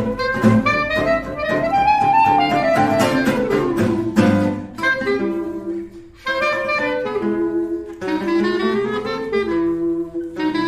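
Background music: a melody on a reed instrument such as saxophone or clarinet over guitar, with a short pause about six seconds in.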